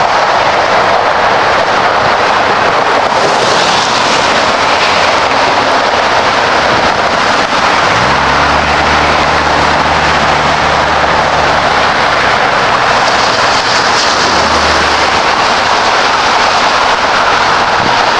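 Steady rush of interstate traffic passing below, mostly tyre noise. From about eight seconds in, a heavy vehicle's engine hum joins for several seconds, then fades.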